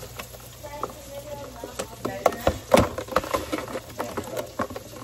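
A plastic food container being handled: a string of irregular plastic clicks and crinkles, the loudest near the middle.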